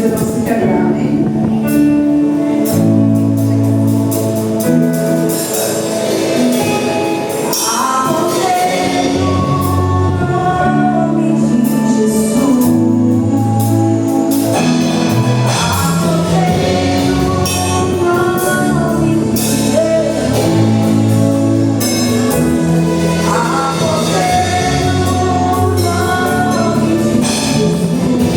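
Gospel worship music: singing over a band, with sustained chords, a moving bass line and percussion.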